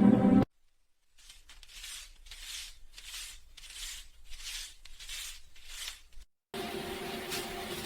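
Paper banknotes being handled: a run of about eight crisp rustling swishes, roughly two a second. A loud humming drone cuts off abruptly half a second in, and a steadier hum with more rustling comes in near the end.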